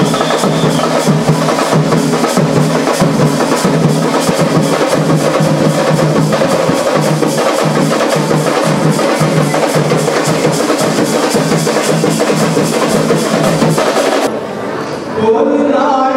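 Loud, fast drumming with a steady rhythm of many strokes a second, playing for a group dance. About fourteen seconds in, it cuts off to a quieter stretch, and chanting voices begin near the end.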